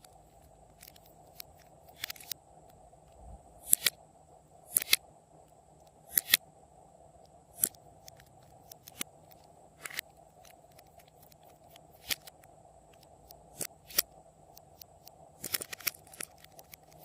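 Glossy slime being worked by hand, with sharp wet clicks and pops every second or so, some in quick pairs, as it is pressed and folded.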